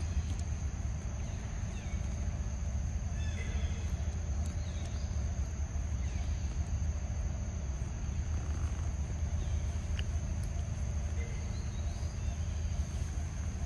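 Steady high insect drone over a constant low rumble, with a few faint bird-like chirps about three to five seconds in and an occasional faint click.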